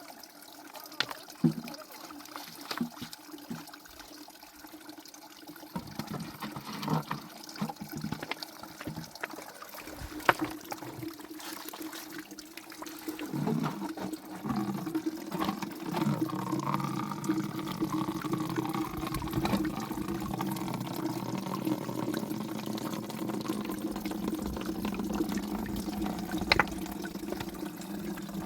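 Running water, steadier and louder from about ten seconds in, with scattered knocks and clicks before that.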